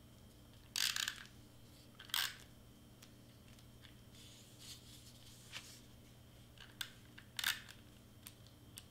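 Tombow double-sided tape runner drawn along a craft-foam shape in short strokes, each a brief rasp, at irregular intervals with pauses between.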